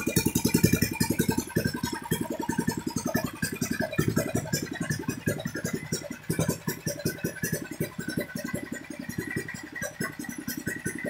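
Yamma 18 hp, 460 cc single-cylinder OHV gasoline engine running, with a rapid, even firing beat.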